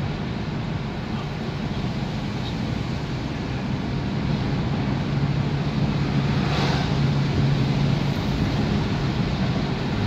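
Steady road and engine noise heard inside a moving car's cabin, with a low hum that grows stronger past the middle. A brief whoosh comes shortly after the middle as an oncoming pickup truck passes.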